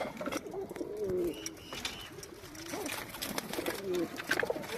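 Teddy pigeons, a domestic fancy breed, cooing over and over in low, bending tones, with scattered sharp clicks.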